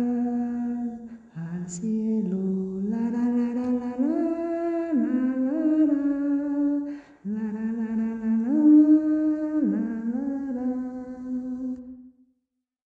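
Wordless a cappella humming of the song's closing melody, with notes held and sliding between pitches. There is a short break about seven seconds in, then a last phrase that fades out and stops near the end.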